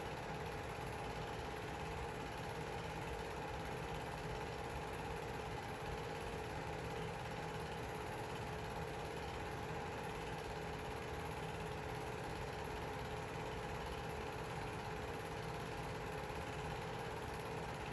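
Film projector running: a steady motor-and-fan hum with two even tones over a constant hiss.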